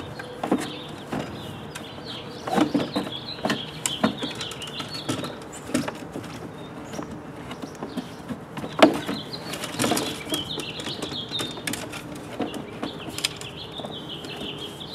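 Scattered knocks and clunks as an old electrical control box is handled and worked loose from the base of an insulation blower. Birds chirp at times in the background.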